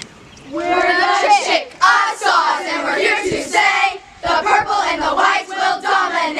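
A group of girls chanting a loud cheer together in unison, starting about half a second in, with a brief pause about four seconds in before the chant picks up again.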